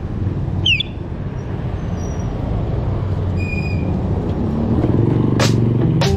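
Steady wind and road rumble from riding a bicycle in street traffic, with a motor vehicle's engine hum growing louder from about four and a half seconds in as it comes up alongside. A short falling squeak comes about a second in, and two sharp clicks near the end.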